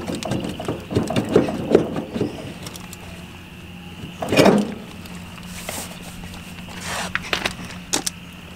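Air let out of a Ford 2000 tractor's front tyre through its valve stem, heard as short hisses, with clicks and knocks of hands handling the wheel. A louder noisy burst comes about four and a half seconds in.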